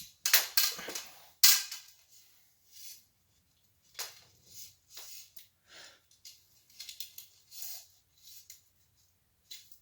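Light metallic clicks and clinks of wire spokes being threaded through a bicycle hub and rim while lacing a wheel: a cluster of sharp ticks in the first second and a half, then scattered lighter ones.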